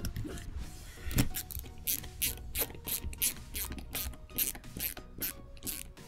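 Ratcheting screwdriver clicking in quick back-and-forth strokes, about two to three a second, as it drives a small screw into a Petzl Captiv carabiner positioning bar. The clicking starts about a second in.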